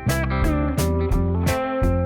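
Background music: guitar-driven track with a steady drum beat.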